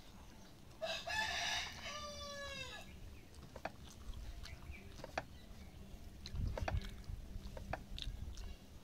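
A rooster crows once, about a second in: one call about two seconds long, held and then falling in pitch at the end. Faint clicks of eating by hand follow.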